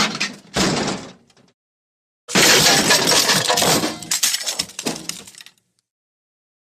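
Crash sound effect with breaking glass: the tail of a short smash dies away in the first second and a half, then about two seconds in a longer crash of shattering glass and clattering debris starts suddenly and fades out over about three seconds.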